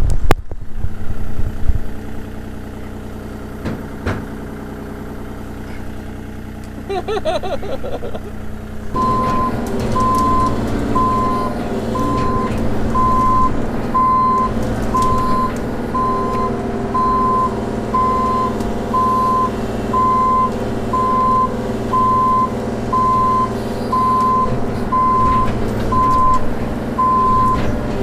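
Diesel engine of a compact construction machine running steadily. About nine seconds in it gets louder and its backup alarm starts beeping about once a second, the sign that the machine is reversing or travelling.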